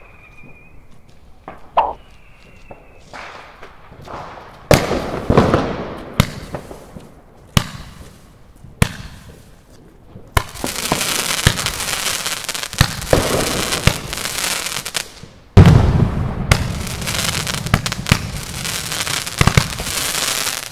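Consumer firework battery firing: a few faint whistles, then single sharp bangs about a second apart, then a long stretch of dense crackling. A very loud bang comes about three-quarters of the way in, and the crackling carries on after it.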